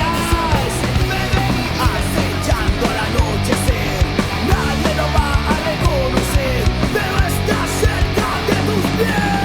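Oi! punk rock song: distorted electric guitars over a driving drum beat, with bending lead-guitar lines.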